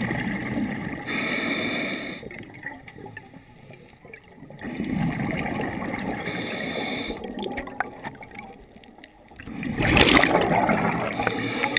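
Scuba diver breathing through a regulator underwater: a hiss with each inhale, about a second in and again around six seconds in, and bubbling exhales between, the loudest near the end.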